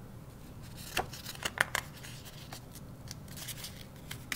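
Paper pages of a picture book being handled and turned: a series of short, sharp rustles and crackles, the loudest about one to two seconds in, then fainter ones.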